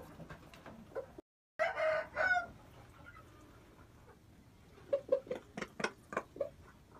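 Game rooster giving a short, loud crow about a second and a half in, right after a brief dropout in the sound. Later comes a quick run of short clucks and sharp beak taps as it pecks feed off the dirt floor.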